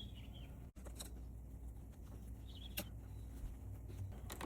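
A few faint sharp clicks from a key being turned in a Baldwin door lock's cylinder, testing whether it now locks and unlocks after the cylinder was reset.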